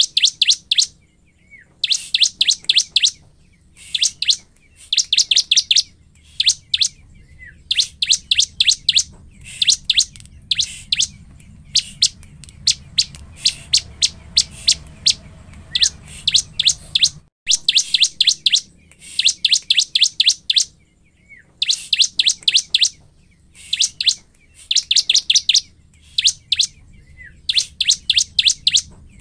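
Ciblek (bar-winged prinia) singing in loud bouts of rapid, sharp high notes, each bout about a second long and repeated every second or two. This is the excited song of a ciblek in full voice, the kind used as a lure call.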